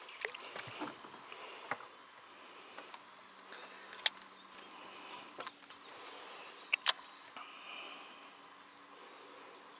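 Sharp clicks and knocks from handling a baitcasting rod and reel, the loudest two about four and seven seconds in, over a faint background of insects. A faint low hum comes in about halfway.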